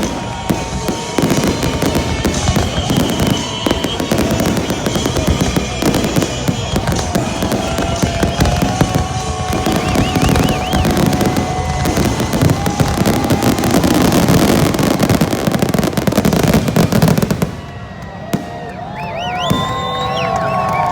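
Fireworks in a dense, continuous barrage of rapid bangs and crackles, a finale volley, stopping abruptly about three seconds before the end. The crowd then cheers and whistles.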